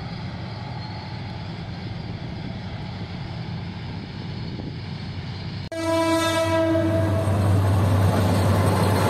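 Diesel-hauled freight train running steadily with a low engine hum. About six seconds in, the sound changes suddenly: a Bangladesh Railway diesel locomotive sounds its horn for about a second, then its engine runs loud as it comes close pulling an intercity passenger train.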